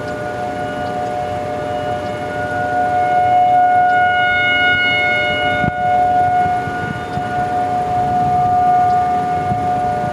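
Outdoor tornado warning siren wailing on one steady pitch, growing louder and fading twice as it rotates; it is sounding because a tornado warning is in effect.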